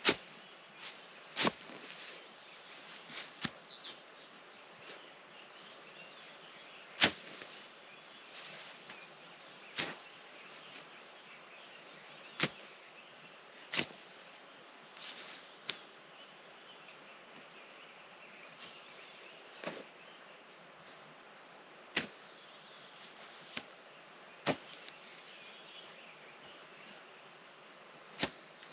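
Hand hoe striking into field soil about a dozen times at irregular gaps of one to four seconds, each a short sharp thud, over a steady high chirring of crickets.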